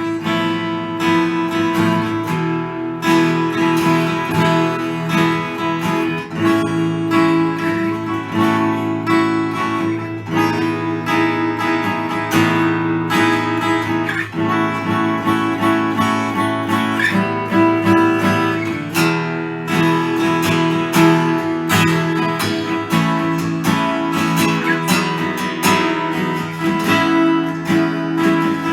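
Martin D-28 dreadnought acoustic guitar being played, chords strummed in a steady rhythm with ringing sustained notes.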